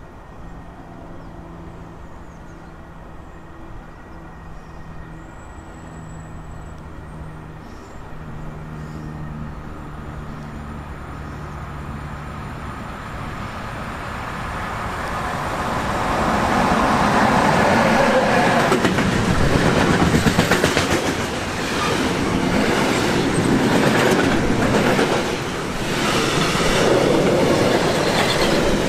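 A train approaching and passing close by: a low steady hum and rising rail noise build for about fifteen seconds, then the train goes by loudly with its wheels clattering rhythmically over the rail joints.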